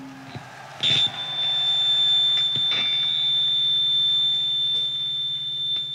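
A steady, high-pitched feedback whistle from an electric guitar amplifier, starting with a click about a second in and holding one tone, over a low amplifier hum.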